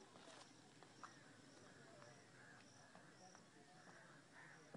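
Faint outdoor ambience: distant crows cawing now and then, with a short high chirp repeating about every half second.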